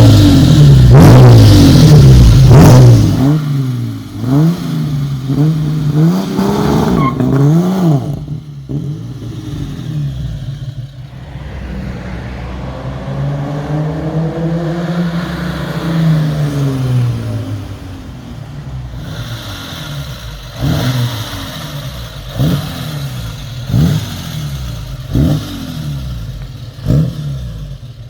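Chevrolet Opala engine revved loudly over and over through a loud exhaust. It opens with a heavy rev, follows with a string of short blips and one slow rise and fall in revs, and ends with sharp throttle blips over a steady idle.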